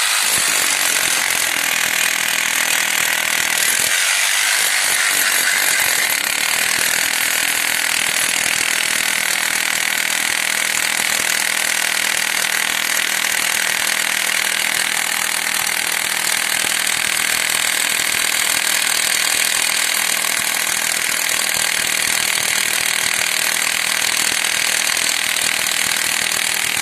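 A power tool working on a reinforced concrete slab, running steadily without a break.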